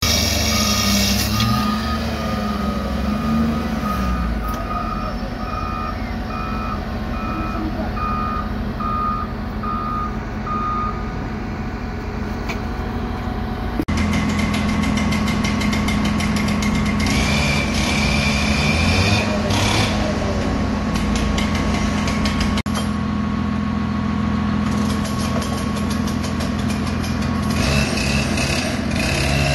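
A vehicle's reversing alarm beeps about once a second over the noise of running machinery. After a cut at about 14 s, a handheld power cutter's engine runs steadily as it saws.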